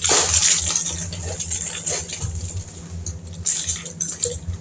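Wrapped candies and plastic snack bags rustling and crinkling as the candies are handled and counted, loudest in the first second with another burst near the end, over a steady low hum.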